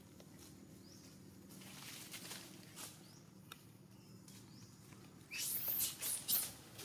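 Monkeys moving about with faint pattering and tapping, then a few short, louder rustling bursts near the end.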